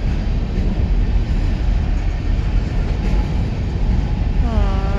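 Empty BNSF coal train's hopper cars rolling past with a steady, heavy rumble.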